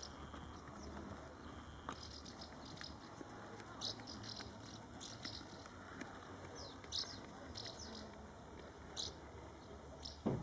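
Faint outdoor ambience with scattered short, high chirps, then a sharp knock near the end.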